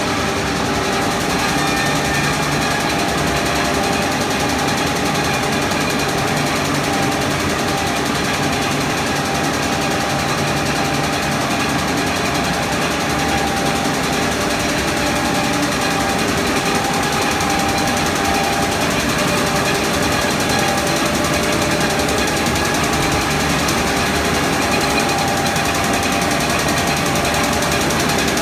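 Line-O-Matic book sewing machine running at speed: a fast, steady mechanical clatter of rapidly repeating strokes that keeps on without a break.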